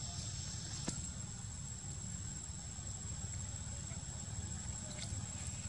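Insects droning in a steady, high, thin tone, over a constant low rumble, with one sharp click about a second in.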